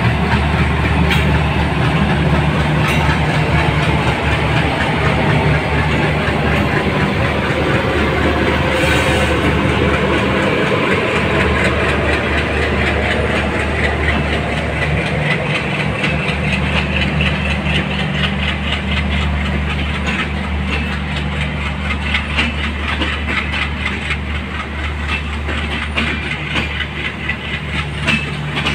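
A passenger train pulled by a diesel locomotive rolls past close by: a steady low diesel engine drone, then the coaches' wheels clatter over rail joints in an even clickety-clack that grows plainer in the second half.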